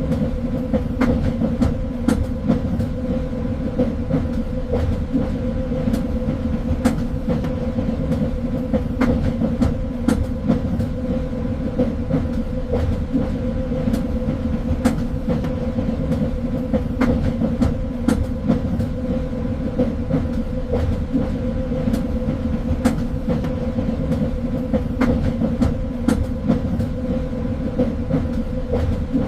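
Train running on the rails: a steady rumble with a constant hum, and sharp clicks and knocks from the wheels and track coming at irregular intervals.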